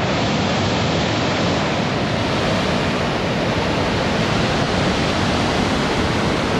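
Floodwater of a river in flash flood rushing past as a loud, steady, dense wash of churning water. It cuts in suddenly at the start.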